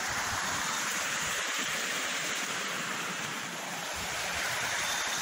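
Steady rush of a forest stream running into a rocky pool, with an uneven low rumble on the microphone underneath.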